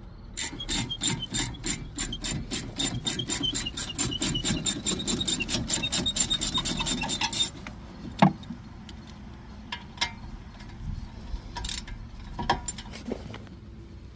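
Hand tool working metal brake hardware: an even run of sharp, ringing, rasping clicks, about four or five a second for some seven seconds, then a few scattered knocks.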